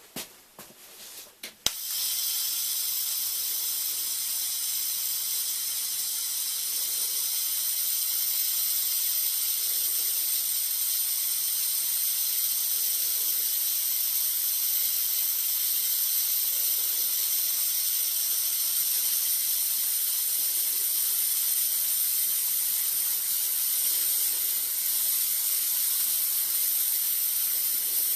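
TIG welding arc on thin-wall stainless steel tube, struck with a sharp click about two seconds in, then a steady high hiss as the weld runs round the tube.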